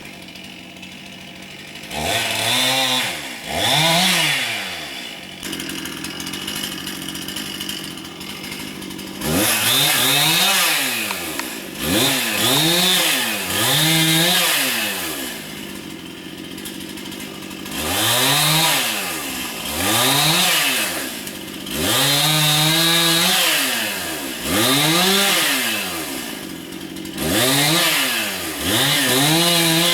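Gas chainsaw revving up and dropping back again and again, a dozen or so times, idling in between, with a longer stretch of idle near the start and another in the middle.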